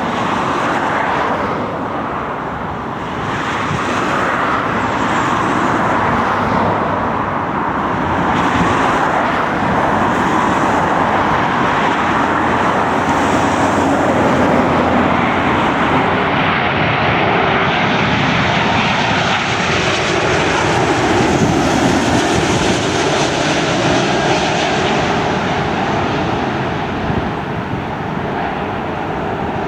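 Jet engine noise of a landing Boeing 777-223(ER), a steady rush that swells and grows brighter past the middle and is loudest about two-thirds of the way through, then eases a little.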